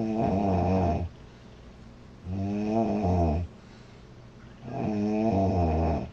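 A woman snoring loudly in her sleep: three snores about two and a half seconds apart, each lasting about a second, with a wavering pitch.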